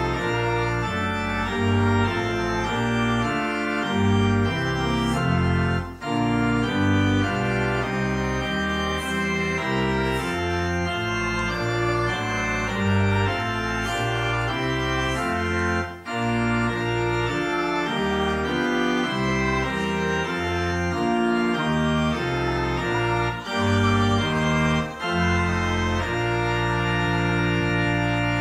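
Church organ playing a slow tune in full sustained chords, with short breaks between phrases about 6 and 16 seconds in, and a long held final chord near the end.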